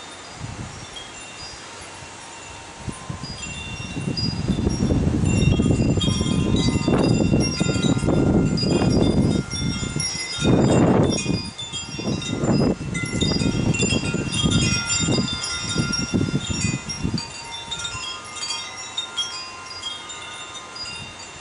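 Wind chimes ringing, many overlapping high metallic tones. Partway through, a louder rushing noise, like a gust of wind, swells up for about thirteen seconds and then dies away.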